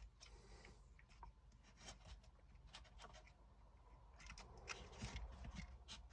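Faint, irregular clicks and light scrapes from small hand tools and tiny parts being handled while a model locomotive is taken apart.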